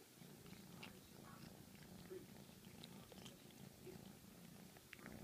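Kitten purring faintly and steadily, with a few faint clicks over it.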